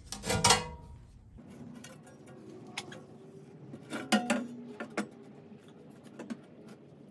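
A short burst of noise at the start, then scattered light metallic clinks and taps, with a cluster about four seconds in, as parts and tools are handled on the mini skid steer.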